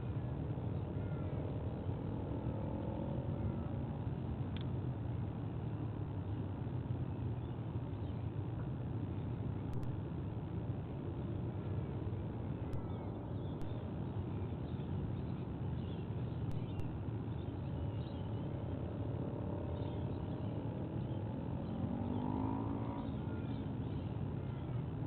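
Steady low rumble of distant road traffic, with engine noise rising and falling as vehicles pass a few times, and faint short bird chirps scattered through it.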